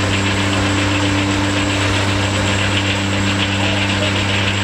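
An engine running steadily at an even speed, with a constant low hum and fast even firing pulses.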